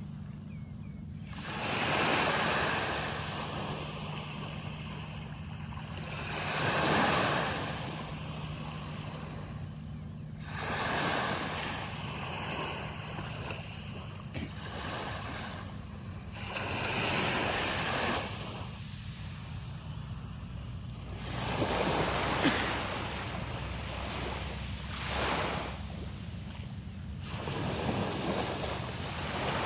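Sea waves breaking on a beach: a loud rush of surf about every four to five seconds, each easing back to a softer wash between breakers, over a steady low rumble.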